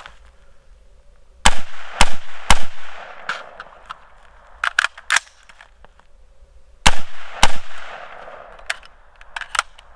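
AR-15 rifle in 5.56/.223 fired five times: three quick shots about half a second apart, each with a trailing echo. Then comes a pause of light clicks and rattles from a magazine change, and two more shots half a second apart.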